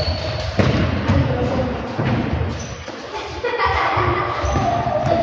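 Indoor five-a-side football in a sports hall: the ball thudding off feet and the hard floor, shoes squeaking, and players shouting to each other.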